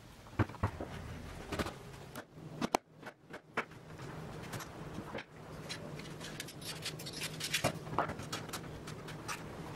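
Scattered knocks, taps and clicks as sapelli door rails, stiles and steel bar clamps are handled and fitted together during a glue-up, over a faint steady hum.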